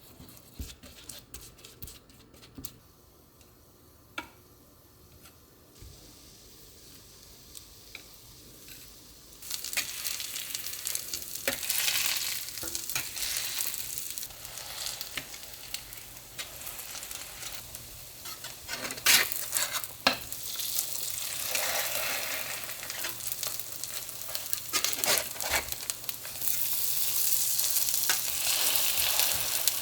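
Food sizzling as it fries in a cast iron pan, with the scrape and tap of stirring. The first third is quiet apart from a few small clicks; the sizzle starts suddenly about nine seconds in and gets loudest near the end.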